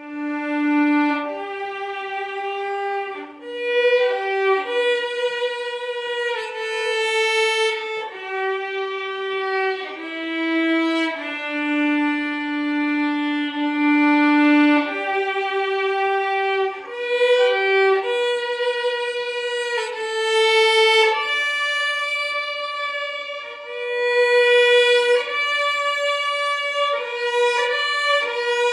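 Solo violin playing a slow hymn melody, one sustained note at a time with no accompaniment.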